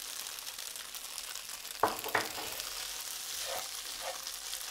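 Grated smoked tofu frying in a pan, sizzling steadily as it crisps, with two sharp knocks close together a little under two seconds in.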